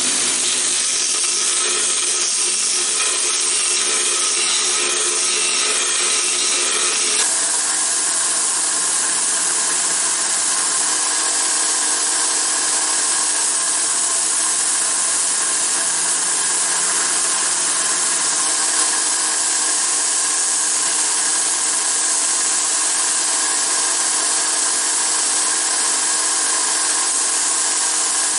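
Belt grinder running and grinding a small steel part by hand, then, after an abrupt change about seven seconds in, a belt-driven abrasive disc grinding steel with a steady running hum and rasp.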